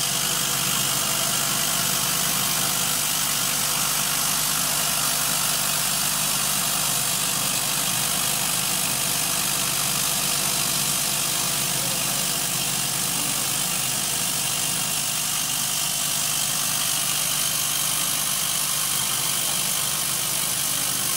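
Steady, even hum and hiss of a 100 W CO2 laser cutting machine running as it slowly cuts through 10 mm acrylic.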